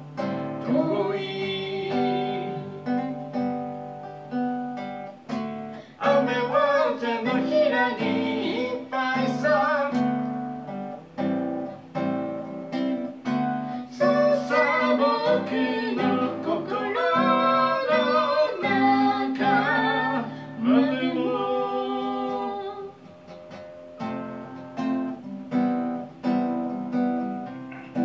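A man singing a Japanese song to his own acoustic guitar, strummed and picked, in a live performance.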